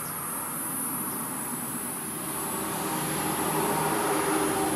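Engine of a passing motor vehicle, getting a little louder toward the end, over a steady high-pitched hiss.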